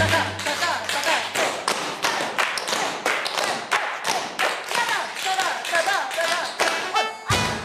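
Dance shoes tapping and stamping on the floor in a quick, dense rhythm of several strikes a second, with music playing under the footwork.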